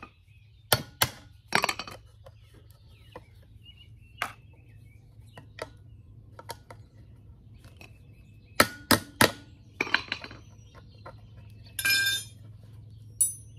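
Scattered sharp metallic clinks and knocks as small metal spikes are worked out of a wooden frame holding wrought iron balusters: a few close together about a second in, a quick cluster of three near the nine-second mark, and a brief ringing clink near the end.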